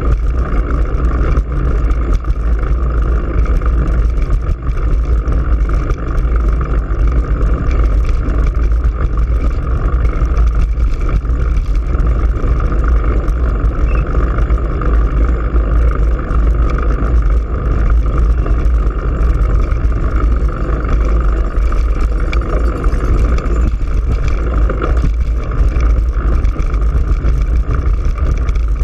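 Steady wind rush and rumble on a GoPro Hero3's microphone mounted on a moving bicycle, with the rolling tyres' road noise underneath.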